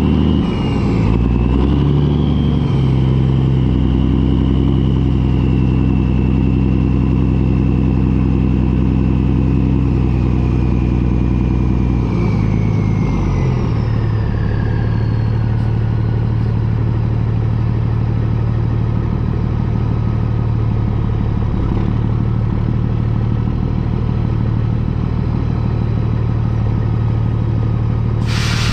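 John Deere combine harvester running under load, a steady engine drone with a high whine that drops in pitch about halfway through.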